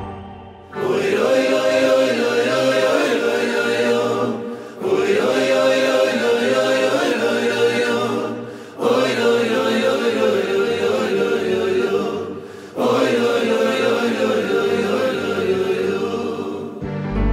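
Male choir singing four matching phrases of about four seconds each, with a brief break between each phrase.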